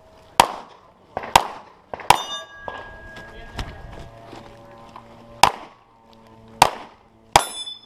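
Six pistol shots from a SIG P320 X5, fired in uneven pairs and singles. Steel targets ring on after the third shot and the last, the longer ring lasting about three seconds.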